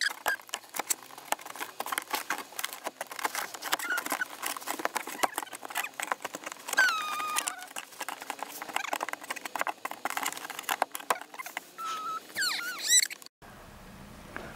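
Rapid clicking, tapping and rattling of a plastic fog light grille being pressed and worked into its bumper opening, with a few short high squeaks. The sound stops abruptly near the end.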